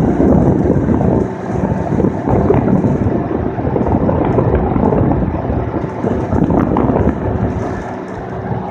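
A vehicle driving, with steady road and tyre noise and many small knocks and rattles, and wind buffeting the microphone.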